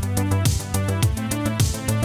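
Electronic background music with a steady drum beat over a deep bass line.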